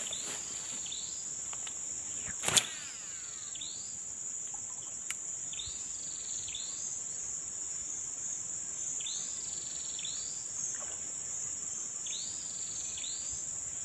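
Tropical forest insects: a steady high-pitched buzz, with a repeated arching chirp call that comes in pairs every few seconds. A single sharp click about two and a half seconds in, and a faint one a little after five seconds.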